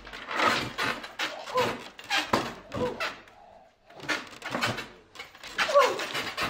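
A protection dog barking in short, repeated bursts while working a decoy, mixed with knocks against a wooden barrier.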